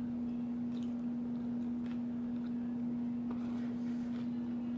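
A steady low hum at one pitch, with a few faint, short clicks over it.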